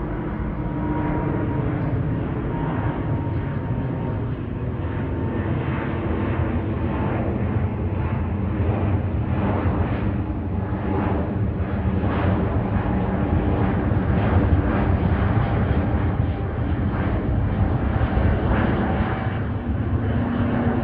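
Airbus A350 jet airliner climbing overhead after takeoff, its twin Rolls-Royce Trent XWB turbofans making a steady, deep rumbling roar with a faint hum of tones. The sound grows a little louder through the first two thirds, then holds.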